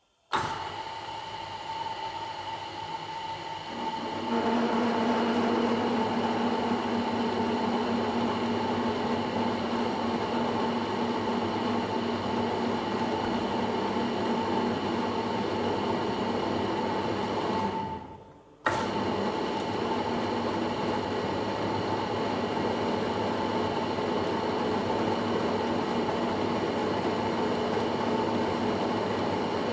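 Belt-driven lathe running at its lowest speed while a knurling tool rolls into the turning workpiece. It is a steady machine hum that grows louder about four seconds in as the tool bears on the job. It breaks off for a moment about two-thirds through, then carries on as before.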